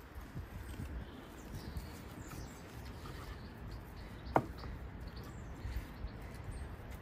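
Faint scraping and crunching of loose stone rubble as the inside of a freshly bored hole in a stone wall is cleared out by hand, with one sharp knock about four seconds in.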